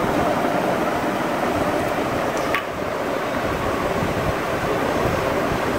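Steady whooshing background noise, like a fan or air conditioner running in the room, with one short click about two and a half seconds in.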